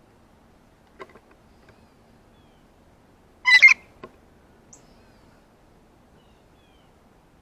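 Blue jay giving one short, loud call about halfway through, with a couple of faint clicks before and after it.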